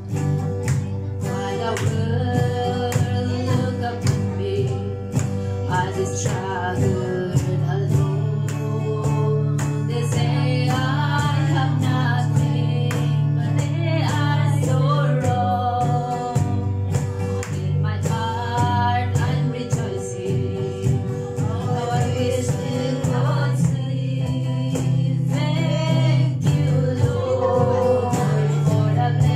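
A woman singing into a handheld microphone, accompanied by strummed guitar.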